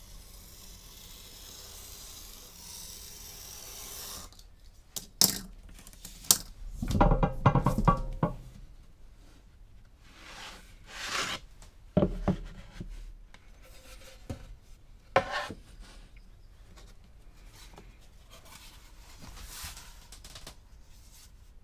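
A craft knife drawn along a steel ruler, slicing a thin strip off a sheet of paper: a steady dry hiss for about four seconds. Then a string of knocks and thuds, with quieter rubbing between them, as wooden pressing boards and the book cover are shifted and set down on a wooden workbench and in a book press.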